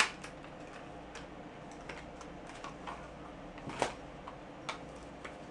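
Light, irregular clicks and taps of a lipstick and its small packaging being opened and handled by hand, with one sharper click about four seconds in.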